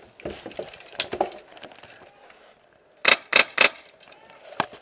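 Airsoft rifle firing three quick shots about a quarter second apart, then one more shot about a second later, each a sharp crack. Faint knocks and rattles of gear come before them.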